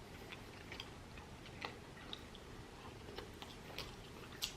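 A person chewing a mouthful of chicken biryani, faint wet mouth clicks coming every fraction of a second, with a slightly louder click near the end.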